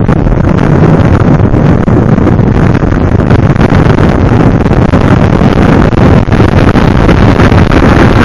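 Motorcycle riding steadily at road speed: loud wind buffeting on the microphone over the engine and road noise.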